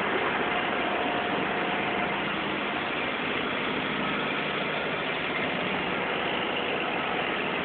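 Forklift engine running steadily while the hydraulic rotator turns a paper roll clamp.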